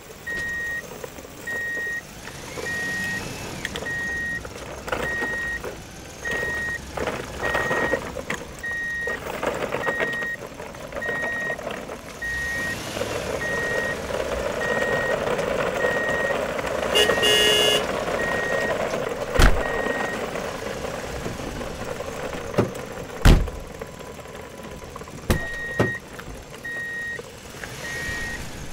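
Steady electronic beeping like a truck's reversing alarm, about three beeps every two seconds, stopping for a few seconds after the middle and then starting again. A short truck-horn toot comes just past the middle, and a few sharp knocks follow.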